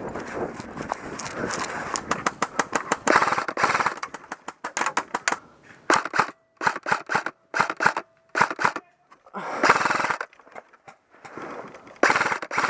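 Airsoft guns firing short full-auto bursts, each a rapid string of sharp clicks, in repeated volleys with brief pauses between them.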